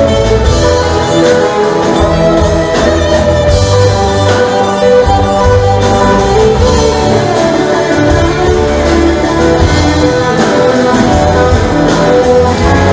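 Live band playing, with electric guitars over a steady bass line and a regular beat.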